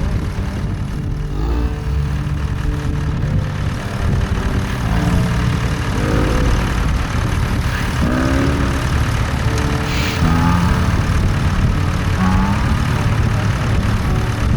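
Tractor engine running steadily, a low drone, with a few short wavering tones over it in the second half.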